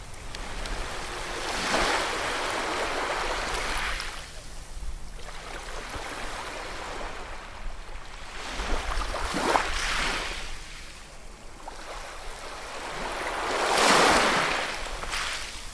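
Ocean waves breaking on a shore and washing back, in slow surges. Three swells come through, the loudest near the end.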